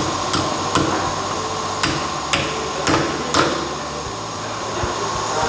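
Six sharp metallic taps of a hammer driving a hammer-on lead balance weight onto the outer edge of a steel wheel rim, fitting the correction weight during wheel balancing. The taps stop about three and a half seconds in, over a steady background hum.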